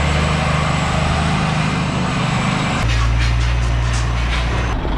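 Diesel engine of a heavy lorry running at low speed close by as the tractor unit and its loaded trailer pull slowly past. The engine note changes about three seconds in.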